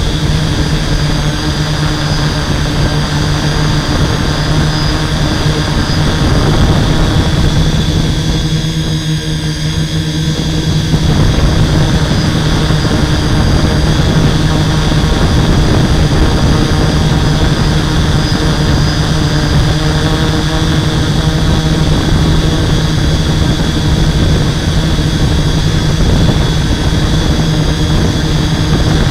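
Six brushless motors and 11x5.5 propellers of a HobbyKing 650X6 hexacopter running steadily in flight, heard up close through a camera mounted on the frame, with a strong steady hum. The sound eases slightly about eight seconds in and picks up again around eleven seconds.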